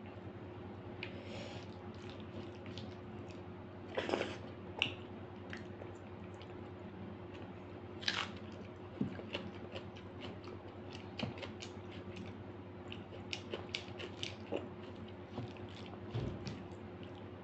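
Close-up eating sounds of rice and dal eaten by hand: fingers squishing and mixing the wet food, and chewing with small wet smacks and clicks. Louder mouthfuls come about 4 and 8 seconds in, over a steady low hum.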